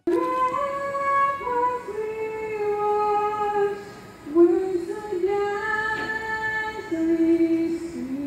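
A woman singing the national anthem solo and unaccompanied, in slow, long-held notes.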